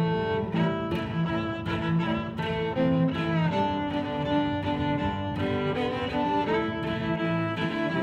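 Background music in slow, held notes that change every half second to a second.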